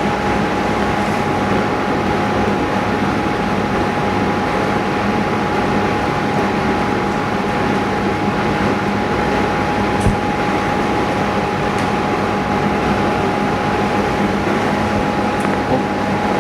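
Steady machine hum with a constant high whine running underneath, with one short click about ten seconds in.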